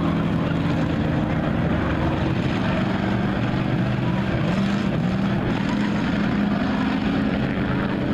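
Engines of several race cars and trucks running together as a steady drone, with one engine's pitch climbing and dropping a few times about halfway through as a driver works the throttle.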